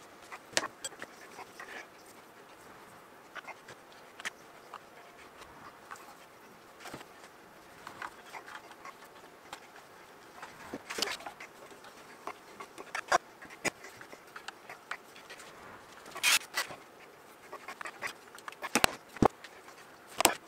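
Scattered light clicks and taps of small metal tools and parts being handled and fitted onto a model traction engine's copper boiler, with a few sharper knocks in the second half.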